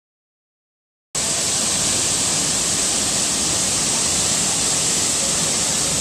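Large waterfall in full flow: a steady, dense rush of falling water, heavy in hiss, that cuts in suddenly about a second in after silence.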